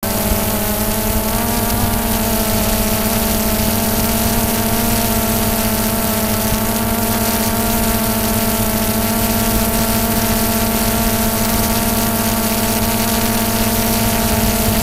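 Multirotor drone's electric motors and propellers running at a constant pitch as it climbs, a loud steady hum of several even tones, picked up close by the drone's own camera.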